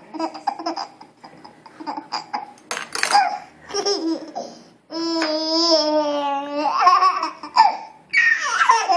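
A baby laughing in repeated short bursts, with one long held, slightly falling cry about five seconds in.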